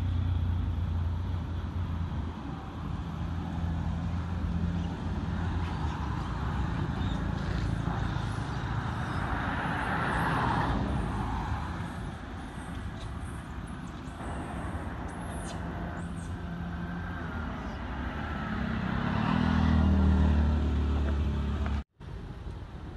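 Low, steady engine hum of a motor vehicle running, swelling about ten seconds in and again near the end, then cutting out suddenly.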